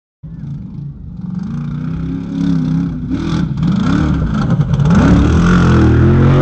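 Off-road race vehicle's engine revving, its pitch climbing and dropping again and again as the throttle is worked, growing louder toward the end. There is a burst of clattering about three seconds in.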